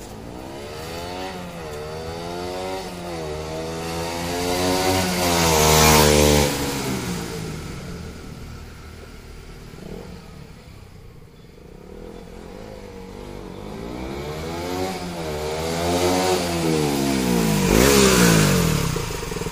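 KTM Duke 200 BS4's single-cylinder engine through its stock exhaust, revving up through the gears and going past twice, about six seconds in and again near the end. Each time the engine note climbs and steps back at the gear changes, gets louder as the bike nears, then falls in pitch as it passes.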